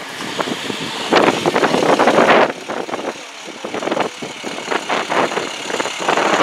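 School bus engine running as the bus drives slowly past at close range.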